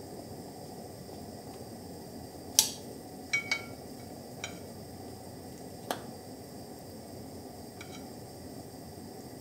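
Light clicks and clinks as stale bread is handled and laid in a glass bowl of seasoned beaten egg, about six scattered strokes with the sharpest about two and a half seconds in, over a steady faint hiss.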